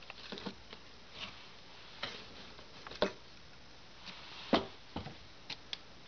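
Scattered light knocks and taps as a glass Crookes radiometer bulb is handled and set level among plastic-wrapped frozen-food packages. About eight short knocks, the loudest about three and four and a half seconds in.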